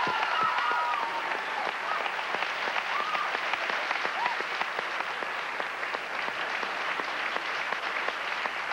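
Studio audience applauding steadily, with a few cheers and whoops over the clapping in the first few seconds.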